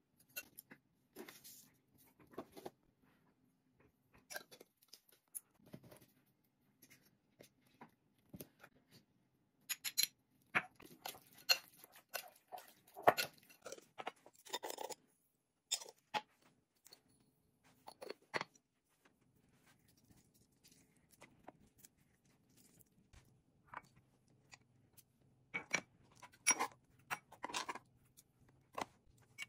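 Scattered clicks, taps and scrapes of kitchen prep: a metal spoon working a beef marinade in a glass bowl, then stirring a garlic-chili-lime dipping sauce in a small ceramic bowl. There is a busier run of taps and scrapes about ten to fifteen seconds in, and another near the end.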